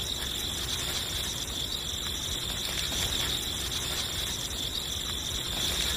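A steady, high insect trill, like a chorus of crickets, running without a break over a low rumble.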